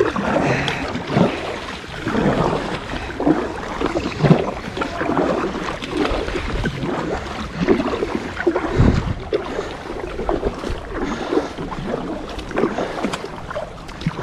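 Kayak paddle dipping and splashing in river water, stroke after stroke, with irregular splashes about once a second.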